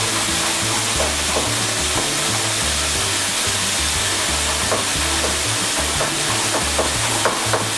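Slices of meat sizzling steadily as they fry in a pan, over background music with a steady low beat.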